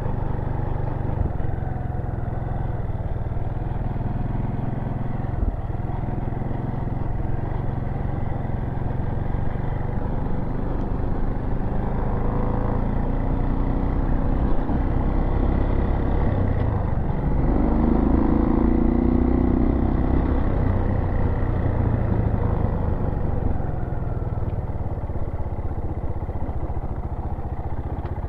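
Dirt bike engine running at low road speed, picking up revs from about twelve seconds in, loudest a little later, then easing back off.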